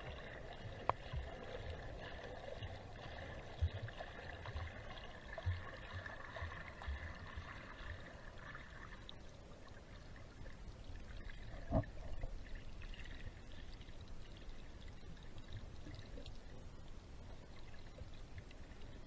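Water sounds picked up by a snorkeller's camera in the sea: a muffled low rumble and sloshing, with a few sharp knocks, the loudest about twelve seconds in.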